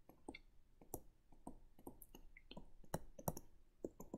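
Faint, irregular clicks and taps of a stylus on a pen tablet during handwriting, a few per second, with one louder tap about three seconds in.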